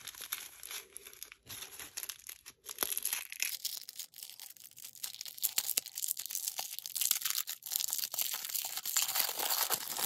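Thin clear plastic bag crinkling as it is picked at, pulled and torn open by hand, the crackling sparse at first and turning dense and continuous about four seconds in.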